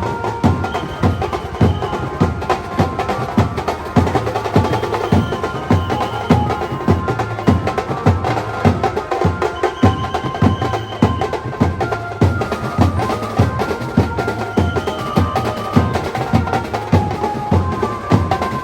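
Maharashtrian banjo party band playing: a fast, busy drum beat under a melody of held notes on the band's banjo.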